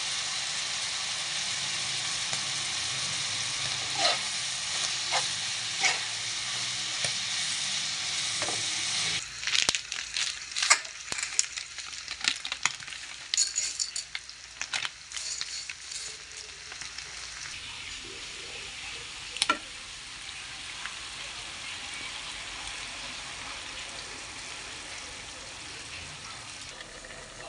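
Ground pork, ham and mushrooms frying in a pan: a steady sizzle with a few sharp clicks of stirring. About nine seconds in this gives way to several seconds of irregular clicks and clatter as dry spaghetti is handled at a steel pot, then a quieter steady sizzle returns.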